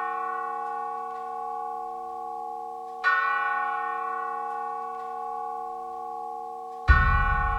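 A large bell tolling slowly: one stroke still ringing out, then struck about three seconds in and again near the end, each stroke ringing on with a cluster of steady tones. The last stroke comes with a deep low boom.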